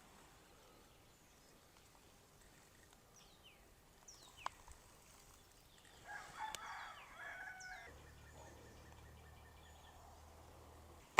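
Faint bird calls against a quiet background: a crowing call about six seconds in, and a few short high chirps before it.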